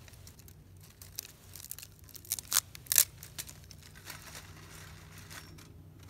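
Handfuls of small dry twigs being snapped and crunched by hand and packed into a small metal folding camp stove: a run of sharp cracks and crackles, loudest two to three seconds in.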